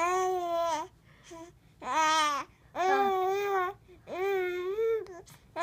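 A young baby cooing and babbling in long, high-pitched, vowel-like coos. There are four main coos, each under a second long, with short pauses between.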